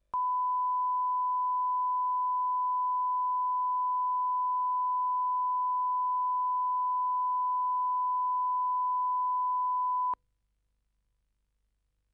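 Standard 1 kHz line-up tone on a broadcast tape's opening slate: one steady pure beep held for about ten seconds, then cut off abruptly.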